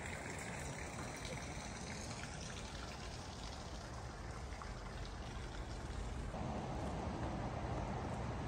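Steady rush of running water, growing a little louder about six seconds in.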